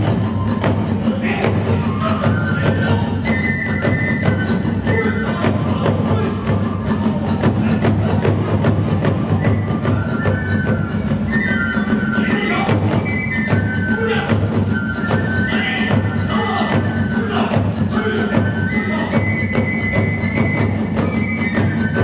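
Kagura music: a bamboo flute plays a high melody in held notes that step up and down, over constant dense drumming and clashing hand cymbals.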